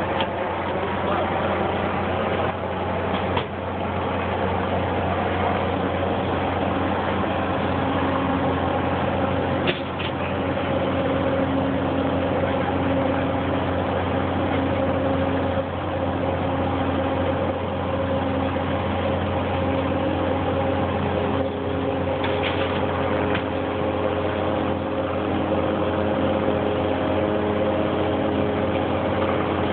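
An engine running steadily, a loud constant drone with a few steady hum tones.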